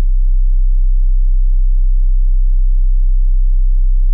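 A loud, steady, very deep electronic tone, a pure low hum, played under an intro title card.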